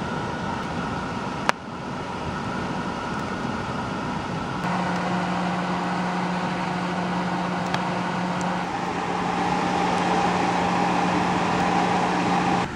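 Small electric blower running with a steady hum and rush of air, forcing air into a burning stump. The level jumps abruptly a few times, with a sharp click about a second and a half in.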